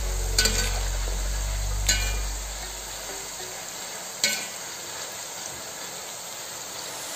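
Jackfruit strips sizzling steadily as they deep-fry in oil, stirred with a ladle that knocks sharply against the pot three times.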